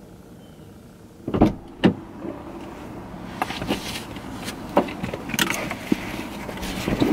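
Car door being unlatched and opened, with two sharp clicks about a second and a half in, then rustling of clothing and a bag and scattered knocks as someone climbs into the driver's seat.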